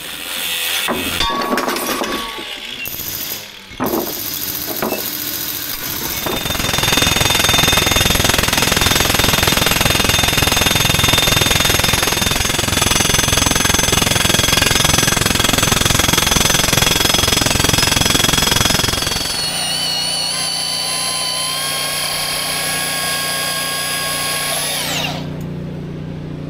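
Hammer blows on the steel row-unit pins, then a long stretch of loud steady noise from work on the seized pins. Near the end a power tool's motor whines, shifts pitch and winds down.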